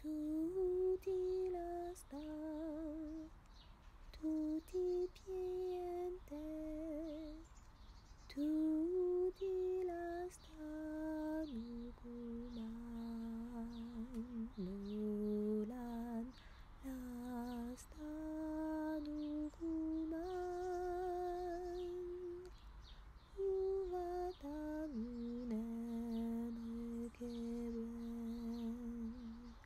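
A woman's voice humming a slow, wordless tune: a stepwise melody of held notes with a wavering vibrato.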